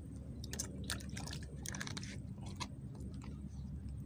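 Small wet clicks and ticks of water stirring among swamp reeds, scattered through the first three seconds, over a steady low rumble.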